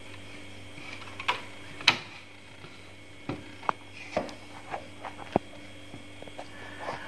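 A series of small sharp clicks and knocks, about seven in all, as an antenna coax plug is pushed into a set-top box's socket and the cables are handled. A faint steady hum runs underneath.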